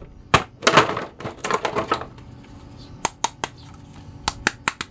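Clear plastic toy packaging crinkling and crackling as action figures are handled. A run of dense crinkles fills the first two seconds, then comes a scattering of sharp clicks.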